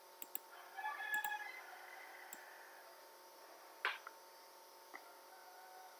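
Several computer mouse clicks over a faint steady electrical whine. There is a brief pitched sound about a second in and a short sharp noise near four seconds.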